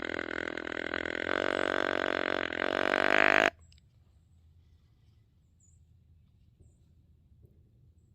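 Deer grunt call blown in one long, low, buzzy grunt lasting about three and a half seconds and cutting off abruptly, the hunter calling to draw in a rutting whitetail buck. Faint background afterwards.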